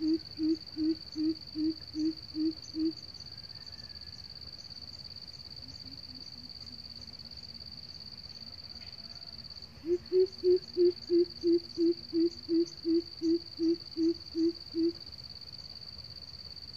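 Coucal hooting: a series of deep, evenly spaced hoots about three a second, breaking off about three seconds in, then a fainter, lower run of hoots, and from about ten seconds in a loud series of some fifteen hoots. It is the decoy bird's call, set out to draw and challenge a wild coucal. A steady high-pitched whine runs underneath.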